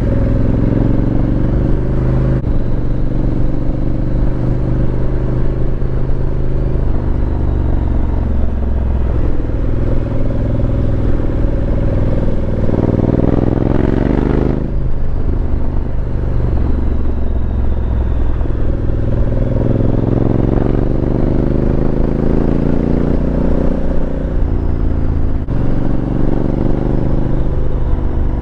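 Honda Africa Twin CRF1100L's parallel-twin engine running under way, its note rising and falling as the rider opens and eases the throttle, climbing steeply and dropping off about halfway through.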